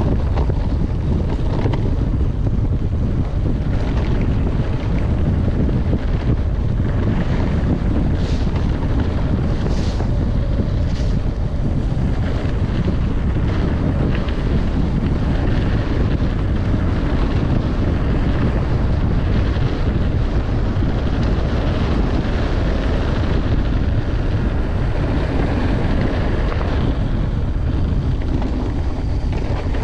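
Steady wind buffeting an action camera's microphone over the low rumble of a mountain bike descending a rough trail at speed, with scattered clicks and knocks from the bike and trail.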